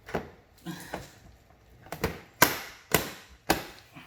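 A series of about six sharp knocks and snaps on plastic as a Can-Am Spyder RT body panel is pressed and tapped home onto its clips, the loudest about two and a half seconds in.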